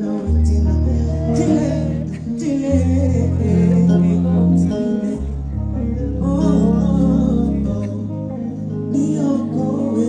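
Live band playing through a PA, with deep held bass notes that change every second or two and guitar, while a man sings into a microphone over it.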